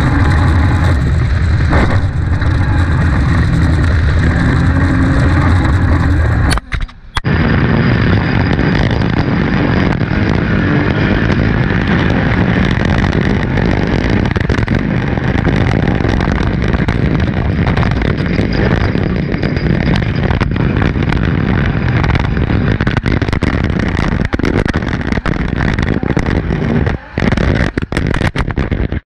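Off-road race buggy engine running hard over rough ground, with heavy wind buffeting on the camera at first. After a brief dropout about seven seconds in, the engine is heard from inside the cockpit with repeated knocks and rattles as the loose camera bangs around from its broken mount.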